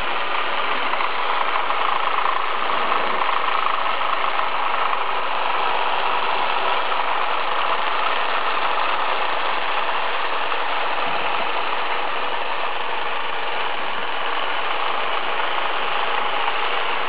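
Working HO-scale model bobsleigh ride running: a steady mechanical whir.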